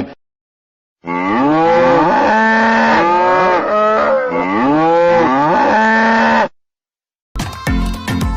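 Several cattle mooing over one another: a long run of overlapping calls that rise and fall in pitch, cut off abruptly with dead silence before and after. Music starts near the end.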